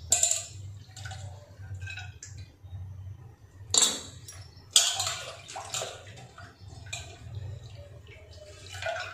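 Washed chana dal and its water tipped from a steel bowl into an aluminium pressure cooker over cut ridge gourd. The dal pours and splashes in irregular bursts, with a few sharper hits; the loudest comes about five seconds in.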